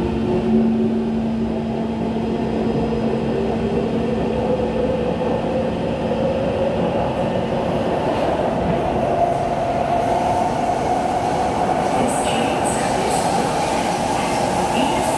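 Inside a Kawasaki Heavy Industries C151 metro car accelerating through a tunnel: the traction motor whine rises slowly in pitch over the rumble of wheels on rail. A steady low hum stops about five seconds in, and a few faint clicks come near the end.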